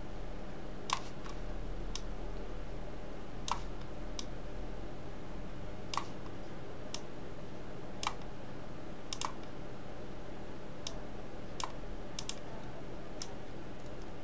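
Computer mouse clicking: about a dozen short, sharp clicks at irregular intervals, over a steady low electrical hum.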